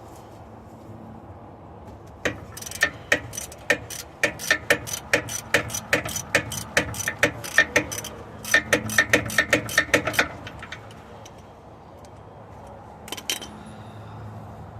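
Ratchet wrench clicking in a quick, even run as the 17 mm wheel hub bolts are worked loose, with a short break partway and two last clicks near the end.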